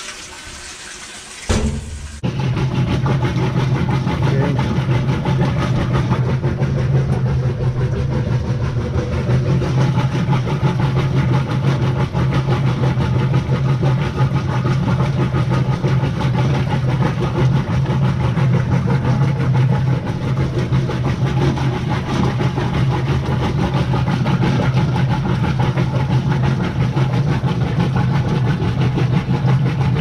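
Whirlpool top-load washing machine starting with a sudden thump about a second and a half in, then running loudly with a steady hum and rattle as its motor drives the agitator. The agitator turns all the way around instead of rocking back and forth, which the repairer takes for a fault.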